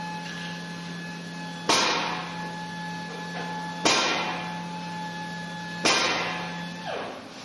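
IX6 wheel spinning with a steady motor hum, broken about every two seconds by a sudden hissing brake scrape that fades away, three in all. Near the end the hum drops off with a falling whine as the wheel slows.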